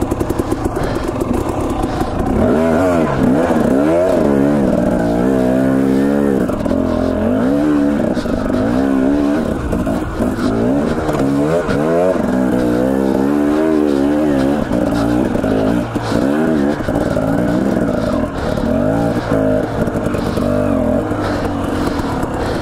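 Two-stroke Husqvarna TE250 dirt bike engine revving up and down in quick, repeated throttle blips while riding rough single track.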